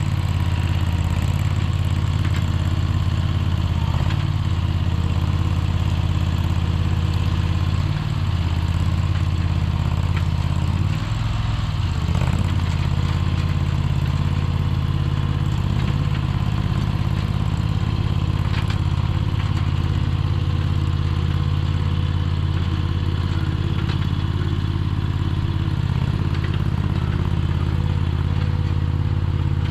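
Mini skid steer's small engine running steadily at a low throttle, its note dipping briefly twice, about eight and eleven seconds in.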